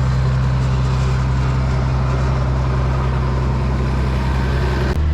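Tractor engine running steadily under load while pulling a bush hog rotary mower, a constant low drone. Just before the end the drone shifts abruptly to a different low pitch.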